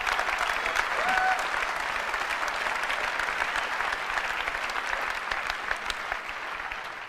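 Large auditorium audience applauding, with a short shout rising over the clapping about a second in; the applause dies away near the end.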